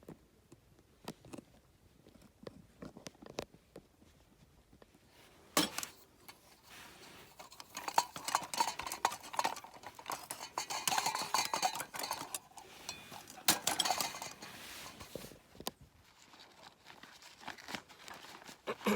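Camping gear being handled: scattered small clicks and clinks, then a busier stretch of metal clattering and rustling in the middle, like cookware being unpacked and set out.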